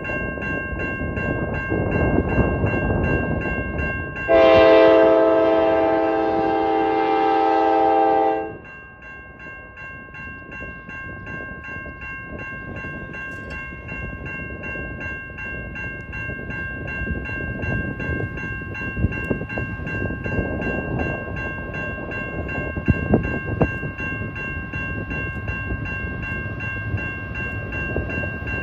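A GE Dash 9-44CW locomotive on an iron ore train sounds one long horn blast, a chord of several notes, for about four seconds starting a few seconds in. Throughout there is the rumble of the train rolling on the rails, with a few sharp clicks near the end, and a steady high-pitched ringing tone that does not change.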